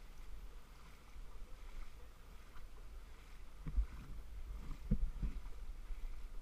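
Wind rumbling on the microphone over faint water sounds of a kayak in shallow water, with three dull thumps a little past the middle.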